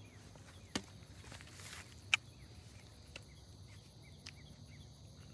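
Quiet outdoor ambience with faint, repeated insect-like chirping, broken by a few sharp clicks or knocks; the loudest comes about two seconds in.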